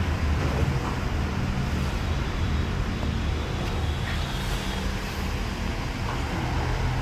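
Steady low rumble of street traffic, with engines running.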